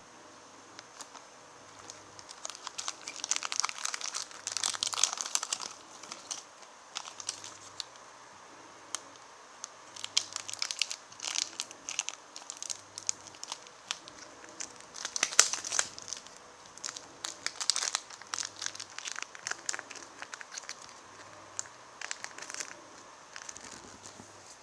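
Plastic packet wrapper being crinkled by hand, in irregular crackling bursts with short pauses between them.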